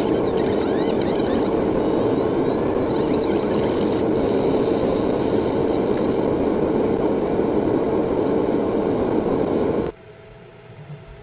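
Fiber laser engraver marking a stainless steel coin: a steady, loud rushing hiss with faint whistling glides, which stops abruptly near the end.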